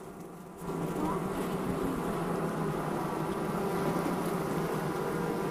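Honey bees at a hive buzzing as a steady, dense hum of many bees, softer for the first half second and then even.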